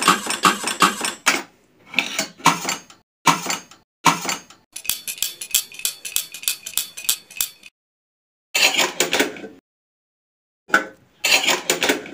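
Rapid metallic clinking and clattering in short bursts, cut off abruptly several times by gaps of dead silence.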